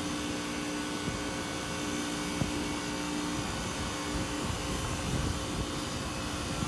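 Outdoor heat pump unit running in defrost mode: a steady mechanical hum, with a steady tone in it that fades out about halfway through.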